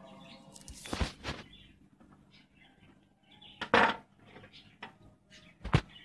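A zucchini being hollowed out with a thin metal corer, scraping through the flesh. There are three sharp knocks or clicks: about a second in, around the middle, and near the end.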